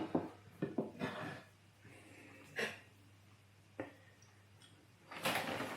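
Soft rustles and light clicks of cooked chicken being spread over a tortilla layer, followed by a breath near the end.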